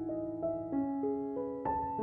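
Background music: a slow keyboard melody of held piano-like notes, a few new notes struck in turn.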